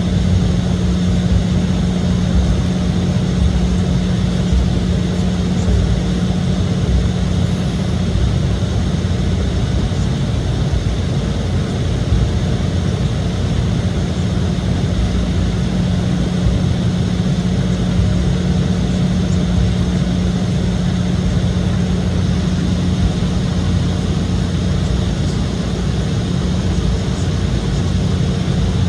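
Steady cabin noise of an Embraer E175 in motion: the rumble of its GE CF34-8E turbofan engines and airflow, with a steady low hum, heard from a window seat inside the cabin.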